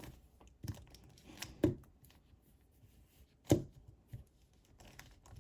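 Rubik's Cube layers being turned slowly by hand, giving a few irregular plastic clicks and clacks, two of them louder than the rest.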